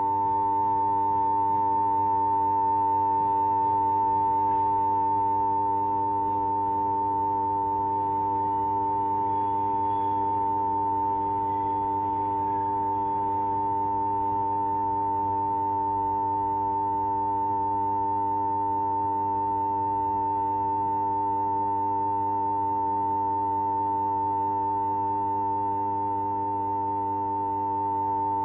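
Steady, high-pitched electronic humming tone: one strong piercing pitch with fainter lower tones beneath it, unchanging throughout.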